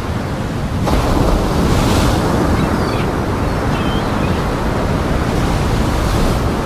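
Big storm waves breaking and washing in a continuous heavy rush, with wind in the microphone. The surf grows louder about a second in.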